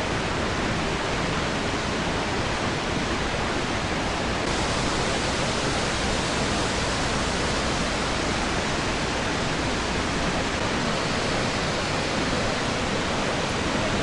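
Steady roar of Iguazu Falls, an even rush of falling water; the hiss turns brighter about four and a half seconds in.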